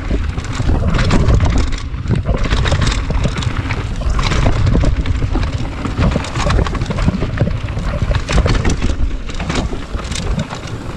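Mountain bike descending a rough dirt-and-rock trail: tyres rolling and crunching over stones, with the bike clattering and rattling over bumps, under a steady rumble of wind buffeting a chest-mounted camera's microphone.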